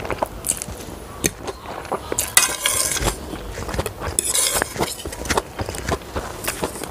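A metal fork clinking and scraping against ceramic plates while gathering instant noodles, in many short clicks with two longer scrapes about two and a half and four and a half seconds in.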